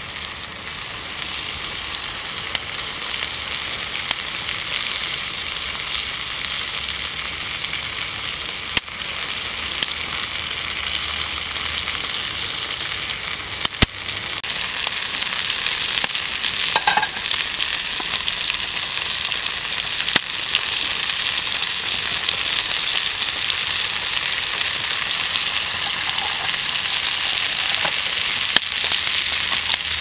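Food sizzling steadily in a pan, slowly growing louder, with a few sharp pops.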